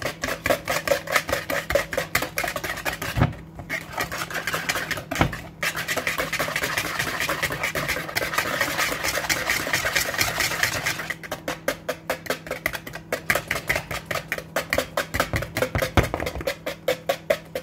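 Wire whisk beating eggs, sugar and honey by hand in a plastic bowl: a fast rhythmic clatter of about four strokes a second. It stops briefly twice and runs into a continuous swish for a few seconds in the middle. This is the stage of whisking the eggs and sugar until they turn pale.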